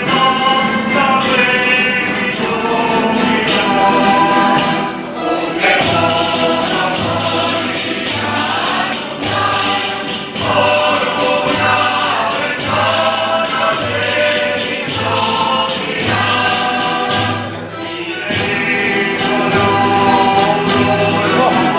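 A ronda of despertadores, a traditional group of dawn singers, sings a religious song in chorus, with a tambourine jingling on a steady beat. A low bass note joins on each beat about six seconds in.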